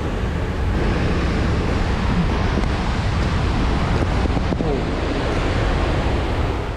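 Loud, steady rushing of a tall waterfall's falling water close by, which cuts off abruptly at the end.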